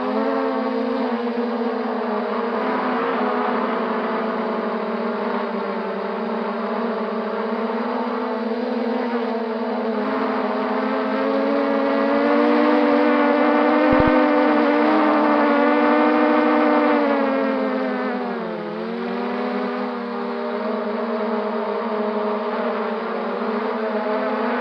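MJX Bugs 3 quadcopter's brushless motors and propellers whining steadily, heard from on board. The pitch climbs and gets louder for a few seconds past the middle, drops briefly with a dip near the end, then comes back up as the throttle changes.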